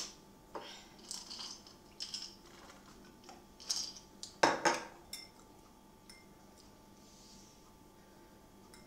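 Glass mason jar holding ice clinking and knocking as it is handled and set down on a stone countertop. The loudest sharp clinks come about four and a half seconds in, with a few softer knocks before them.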